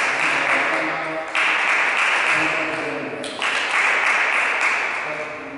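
Applause from a small group clapping hands. It swells afresh about a second and a half in and again past three seconds, then dies away near the end.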